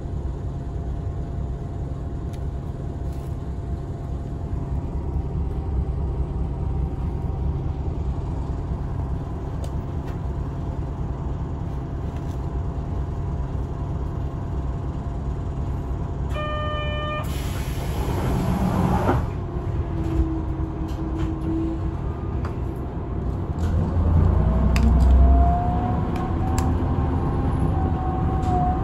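A bus engine running, heard from inside the cabin, with a steady low rumble. About halfway through there is a short beep, then a hiss lasting about two seconds. Near the end the engine note rises as the bus speeds up.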